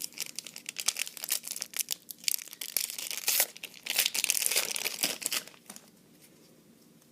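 A foil trading-card booster pack wrapper being crinkled and torn open by hand: dense crackling for about five seconds that stops shortly before the end.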